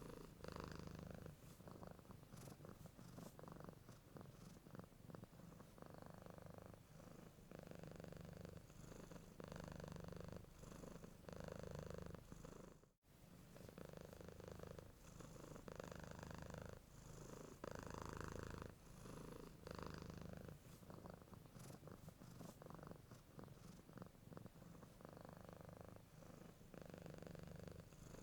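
Domestic cat purring quietly and continuously, swelling and fading in a slow rhythm with each breath in and out. The sound cuts out for a moment about halfway through.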